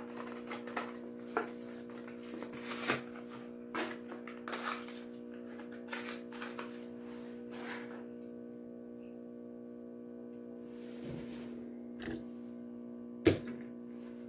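Small motorized display turntable running with a steady hum. Scattered light clicks and rustles come in the first half, and one sharp click comes near the end.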